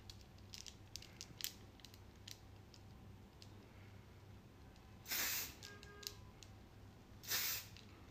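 Two short hisses of hair spray being sprayed onto hair, about half a second each and some two seconds apart, the first about five seconds in and the second near the end. Faint light clicks come before them.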